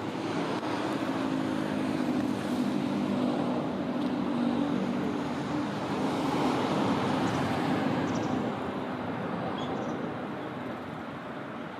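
Road traffic: a motor vehicle's engine hum and tyre noise passing by, fading off after about eight seconds.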